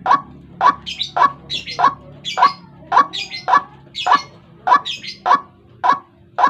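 White-breasted waterhen (ruak-ruak) lure recording: a harsh call repeated about twice a second, each note a short downward sweep. Higher, chattering notes fall between some of the calls.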